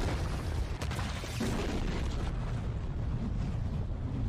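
Sound effects of an animated superhero fight: a steady low rumble, like an explosion or eruption, with a few sharp impacts in the first second and a half.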